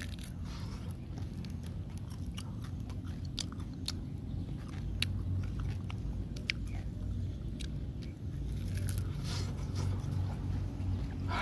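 Close-up chewing and biting on grilled catfish: irregular small clicks and crunches, over a steady low hum.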